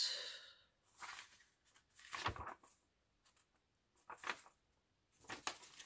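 Paper rustling in a few short, faint bursts as loose pages of an old children's book are picked up, turned and opened out, with quiet gaps between.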